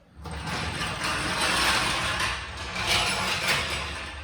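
A ratcheting mechanism being worked: a dense run of rapid mechanical clicking that starts abruptly and swells twice before fading.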